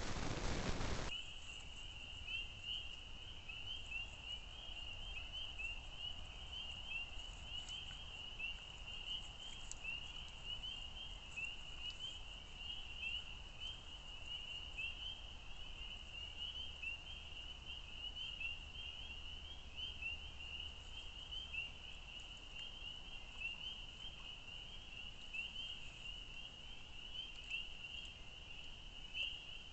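A loud even hiss cuts off suddenly about a second in, leaving a steady high-pitched trilling chorus of many small animals calling at once, with a faint low rumble underneath.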